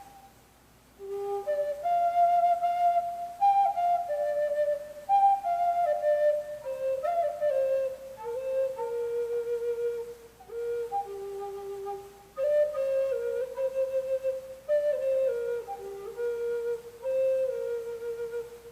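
Native American flute playing a slow solo melody, starting about a second in. It moves in phrases of held and stepping notes, with short breath pauses between phrases.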